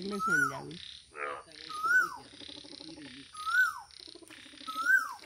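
Frogs calling: a loud short call that rises and then falls, repeated about every second and a half, over lower pulsed croaking.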